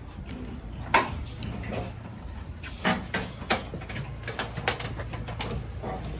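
Irregular knocks and clunks of furniture and boxes being handled while a moving truck is loaded, the sharpest about a second in and a run of them in the second half, over a steady low hum.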